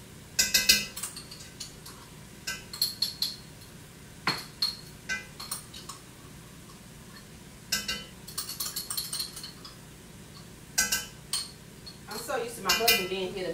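Metal spoon clinking and scraping against cookware in short clusters of taps, a few seconds apart, as minced garlic is spooned into a pot of cooking vegetables.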